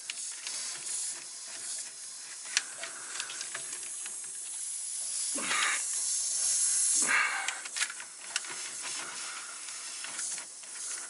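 Compressed air hissing steadily from a leaking quick-disconnect fitting on a truck's main air line, swelling louder toward the middle. A few small clicks and two short, stronger rushes of air come about five and a half and seven seconds in.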